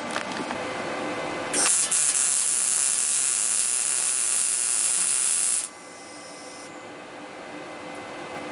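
PrimeWeld MIG 180 welding arc sizzling through one short weld of about four seconds, starting about a second and a half in and cutting off suddenly as the trigger is released.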